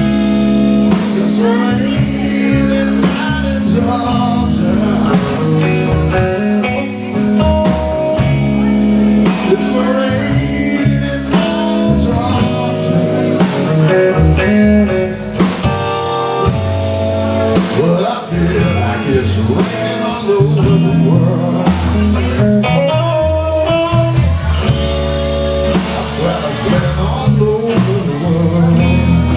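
Blues band playing an instrumental passage with guitar to the fore.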